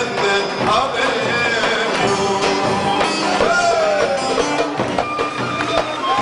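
Live Turkish folk music: a band of bağlama lutes and a large drum playing, with a man singing into a microphone over them.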